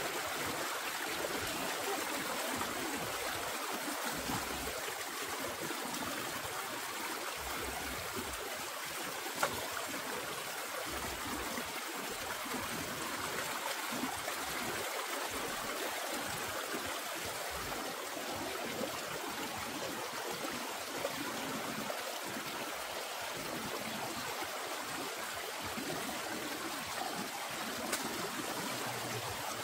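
Stream water running steadily, with a sharp click about nine seconds in and a fainter one near the end.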